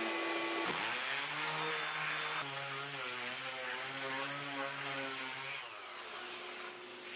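Electric palm sander running on the face of oak slices, its hum wavering in pitch as it is pushed across the wood, over a steady hiss of sanding. It stops about five and a half seconds in.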